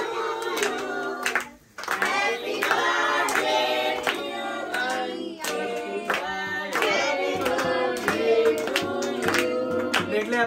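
A group singing a birthday song, with hands clapping along in time; the singing drops out for a moment about a second and a half in.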